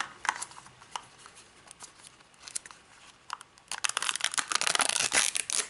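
Crinkling and tearing of the thin printed wrapper being peeled off a Mini Brands plastic capsule. Scattered small crackles come at first, then a dense stretch of crinkling near the end.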